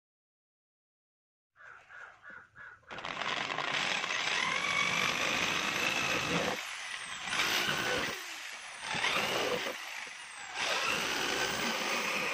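Cordless drill boring small holes through a plastic bucket lid. It starts about two seconds in with a few short blips, then runs in four long stretches with brief stops between them, its motor whine rising as it spins up.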